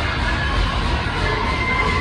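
Hockey rink crowd cheering and shouting, with young voices among them, over music.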